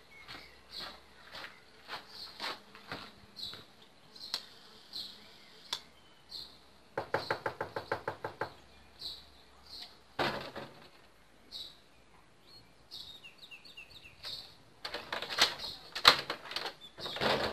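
Footsteps on a gravel path, then a quick run of rattling knocks on a wooden door for about a second and a half, a single knock a little later, and a louder burst of knocking and door noise near the end.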